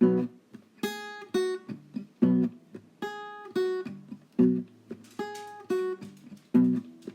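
Instrumental music: an acoustic guitar strumming short, punchy chords in a steady rhythm, each one ringing briefly and dying away.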